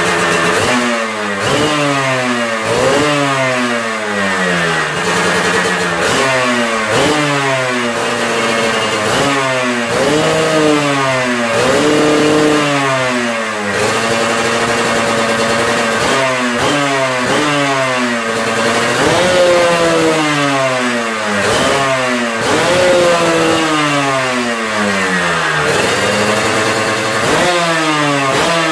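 Yamaha RXZ single-cylinder two-stroke engine revved through an aftermarket exhaust in repeated throttle blips, each rising sharply and falling back toward idle every second or two, with a few longer held revs.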